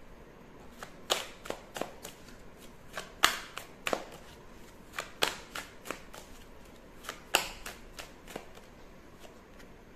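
Tarot deck being shuffled by hand: a run of irregular sharp card clicks and snaps.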